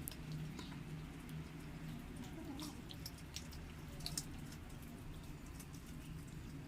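Kittens eating, with scattered small clicks and ticks of chewing at irregular intervals over a steady low hum.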